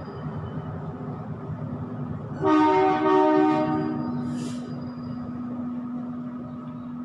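A loud horn blast of about a second and a half, with a short dip in the middle, about two and a half seconds in, over a steady low hum, followed by a brief hiss.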